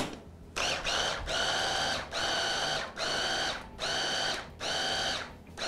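Electric hand blender with its chopper bowl, pulsed in about six short bursts, each a steady motor whine lasting under a second. It is mixing frozen banana chunks into ground nuts and cookie crumbs, pulsed only briefly so the banana keeps its frozen texture and the filling does not turn runny.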